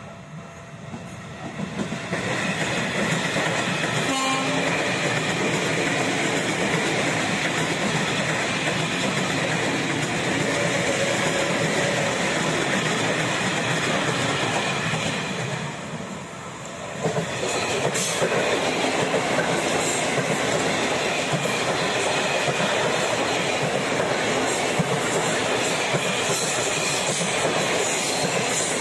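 Two ex-JR 205-series electric commuter trains passing close by, one after the other: wheel and running noise on the rails builds over the first two seconds as the first train comes in, then stays steady and loud. It eases briefly about sixteen seconds in, then rises again as the second train goes by. A short horn note about four seconds in.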